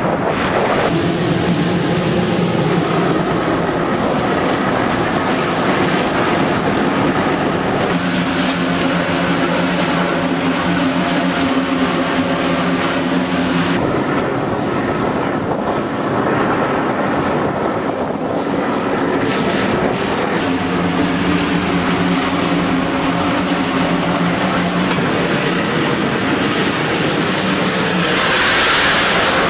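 Slovenian Railways steam locomotive 25-026 running along the line, heard from its cab window: a steady rush of running noise and wind with a low hum that comes and goes in stretches. Near the end a brighter hiss rises.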